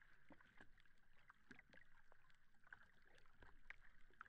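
Near silence: faint background tone with scattered soft clicks.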